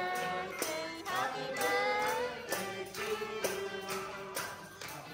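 A group singing a birthday song together, with a tambourine and hand claps keeping a beat about twice a second.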